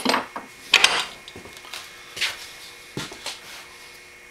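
A few sharp metallic clinks and knocks, the loudest two within the first second and fainter ones later: a small hammer laid down on a steel bench block and straight-razor pin stock being handled at a bench vise.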